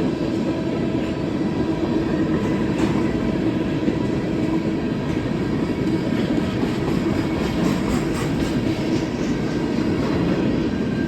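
Empty freight cars of a CSX train rolling past: a steady rumble and hum of wheels on rail, with clusters of wheel clicks over rail joints about three seconds in and again in the second half.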